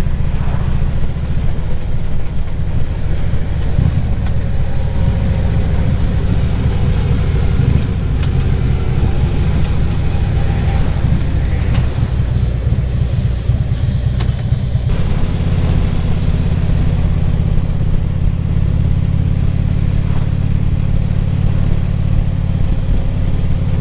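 Harley-Davidson Ultra Classic Limited's V-twin engine running at road speed, with wind and road noise, heard from a helmet-mounted microphone. Its note shifts about fifteen seconds in.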